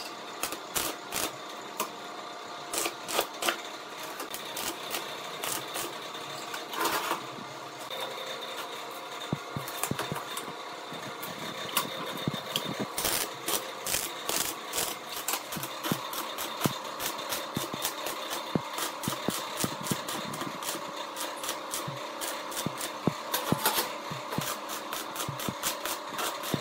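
Stick (shielded metal arc) welding: the electrode's arc crackling and spitting in irregular bursts, denser in the second half, over a steady hum.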